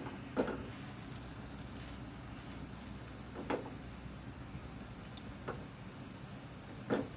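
Grated sweet potato hash browns sizzling in oil in a frying pan, with a faint crackle. A metal spoon pressing the patties knocks lightly against the pan four times, loudest just after the start and near the end.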